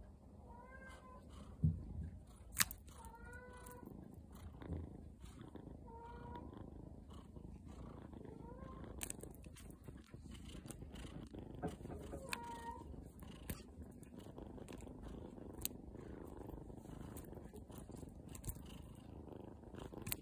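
Brown tabby kitten purring steadily close to the microphone, with short high mews now and then, the sound of a kitten seeking affection. A few sharp clicks, the loudest two near the start.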